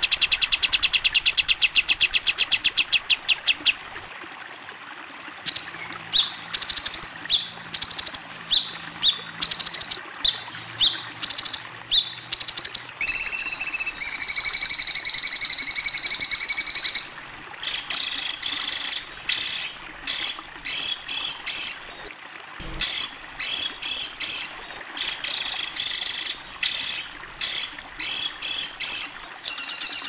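Recorded songbird song used as a masteran (tutor track for training competition cage birds): a fast high trill at the start, then after a short pause a string of separate sharp chirps, a held high whistle lasting about three seconds, and a quick run of sharp repeated notes, about three a second, to the end.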